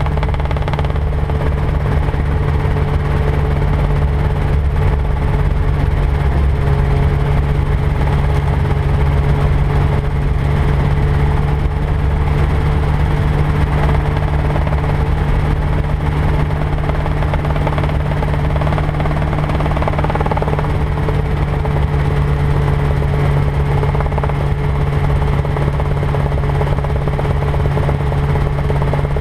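Rotorway 162F kit helicopter in forward flight: a steady drone of its flat-four engine and rotor.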